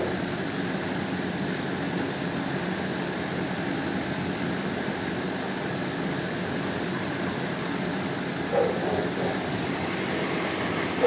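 Steady hum of building ventilation, with one short dog bark about eight and a half seconds in.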